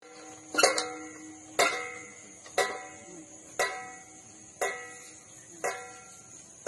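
Metal outdoor-gym exercise machine swinging with no one on it, its steel arms clanking about once a second, each clank ringing on briefly and fading.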